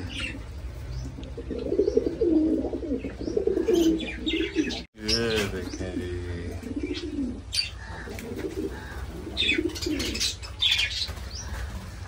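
Fancy pigeons cooing over and over, with short high chirps from small aviary birds scattered through. The sound breaks off for an instant about five seconds in.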